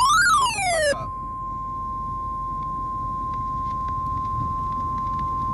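NOAA Weather Radio alert tones. A loud electronic wail with many overtones sweeps up and down in pitch and cuts off about a second in. The steady 1050 Hz warning alarm tone follows and holds, announcing a severe thunderstorm watch.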